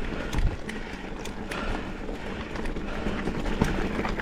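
Mountain bike rolling downhill over a rough dirt trail of rocks and roots: a steady crunch of tyres on the ground, with irregular sharp clacks and rattles from the bike as it hits bumps.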